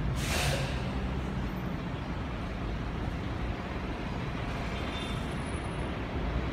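Steady low rumble of city street traffic, with a short hiss about half a second in.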